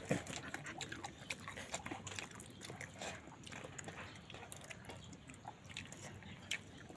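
Close-up eating sounds: a person chewing chicken with dal, with many small wet mouth clicks and smacks at an irregular pace and a louder knock right at the start.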